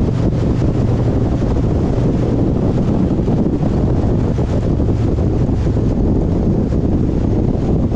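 Steady wind buffeting on the microphone over a vehicle's engine running at an even speed, a constant low rumble with no change in pace.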